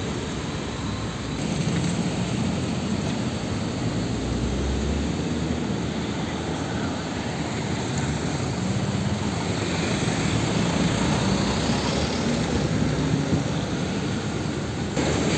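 Heavy diesel truck engine running as the truck pulls away, mixed with road and traffic noise.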